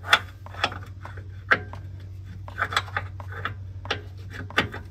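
Sharp metal clinks and light scraping of an 18 mm offset wrench being fitted and worked on a steering-rack mounting nut, several separate clinks spread over the few seconds. A steady low hum runs underneath.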